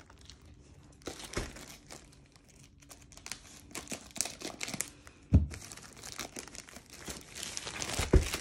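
Clear plastic sleeve around a rolled diamond painting canvas crinkling and rustling as it is handled and opened, with a dull thump about five seconds in and another near the end.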